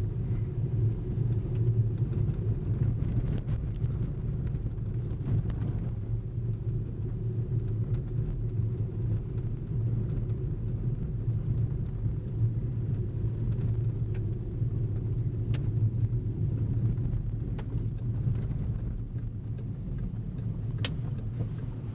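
Steady low rumble of a 2010 Volkswagen Jetta's 2.0-litre turbocharged four-cylinder and its tyres on snow-covered road, heard from inside the cabin while driving, with a few faint scattered clicks.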